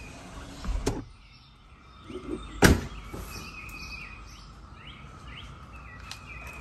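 Small birds chirping over steady outdoor background noise, with a dull thump about a second in and a single sharp click, the loudest sound, near the middle.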